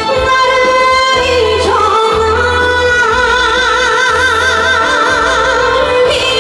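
Live band ballad with a female vocalist through a PA system; about three seconds in she holds a long note with wide vibrato over a steady, pulsing bass line.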